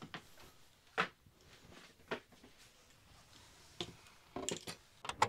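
A few separate light knocks and clicks of a fishing rod being handled and stowed, the loudest about a second in, with a quick run of clicks near the end.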